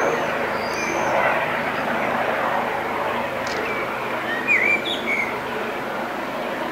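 Distant Eurocopter EC135 helicopter passing overhead, its rotor and turbine noise a steady drone. A few short bird chirps come through about a second in and again around four to five seconds in.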